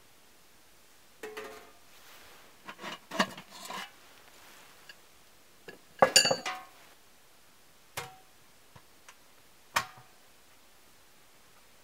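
Metal clanks and clinks of a homemade sheet-metal wood stove being handled, its lid and fittings knocking against the body. A cluster of knocks comes around the third second, the loudest ringing clank just after six seconds, then single knocks twice more.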